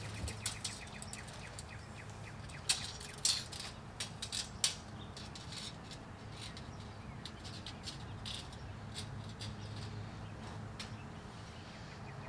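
Quiet background with a steady low hum and scattered short, high-pitched ticks, bunched about three to five seconds in.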